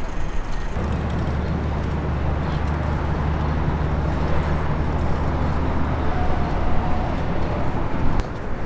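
A vehicle engine running with a steady low hum over city background noise. The hum starts about a second in and cuts off suddenly near the end with a sharp click.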